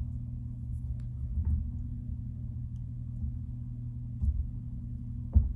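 Steady low hum with a few faint clicks, likely from handling the fly-tying tools at the vise.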